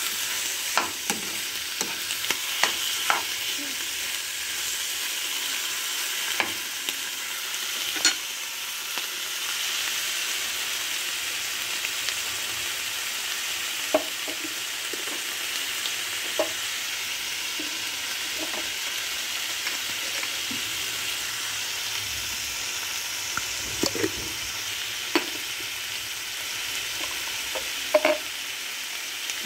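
Chicken pieces sizzling in hot oil in a frying pan as they are sautéed with ginger, onion and garlic, a steady frying hiss with scattered sharp clicks.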